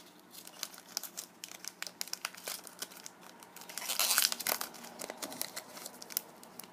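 Foil booster pack wrapper crinkling as it is handled and torn open, with many small crackles and a louder rustling tear about four seconds in.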